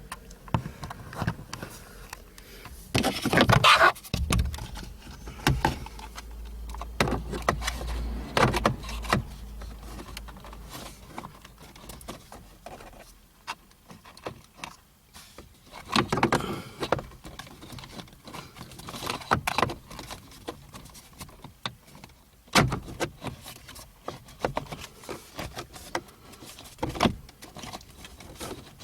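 Plastic steering column cover being handled and pressed into place: scattered clicks, knocks and scrapes of plastic trim, the loudest cluster a few seconds in.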